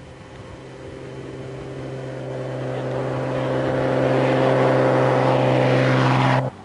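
B-17 bomber's four Wright R-1820 Cyclone radial engines and propellers making a low pass, growing steadily louder as the plane closes in, then cutting off suddenly near the end.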